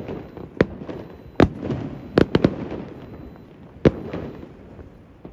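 Fireworks display: about half a dozen sharp bangs of shells bursting at irregular intervals, including a close pair a little after two seconds. Each bang trails off in a rolling echo.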